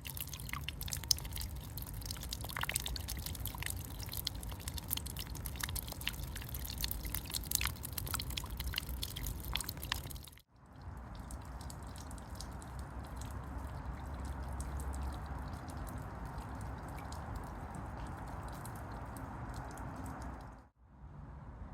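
Rain falling, with many close drops ticking and splattering. About ten seconds in the sound cuts out briefly and a steadier, duller rain hiss follows, with only the odd tick.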